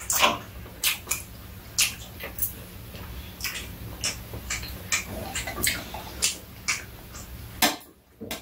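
Metal chopsticks and a fork clicking irregularly against stainless-steel plates, with the mouth sounds of two people chewing as they eat.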